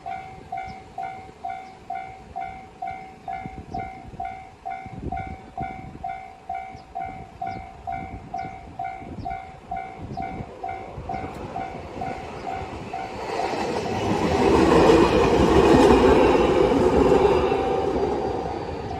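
Japanese level-crossing alarm ringing its steady kan-kan, about two strokes a second. About thirteen seconds in, a train rushes through the crossing, loudest a couple of seconds later, and fades near the end, drowning the alarm while it passes.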